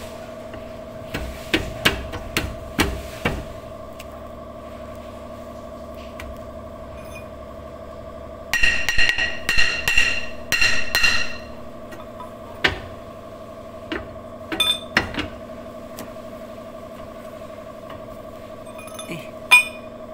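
Steel rear brake drum of an Isuzu Highlander being struck with a hammer: a few sharp knocks, then a rapid run of ringing metallic strikes over about three seconds midway, then scattered lighter knocks. A steady hum sits underneath.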